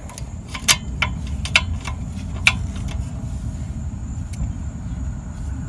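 A wrench on the 16 mm caliper bracket bolts of a rear disc brake, giving about half a dozen sharp, irregular metallic clicks and taps over a steady low rumble.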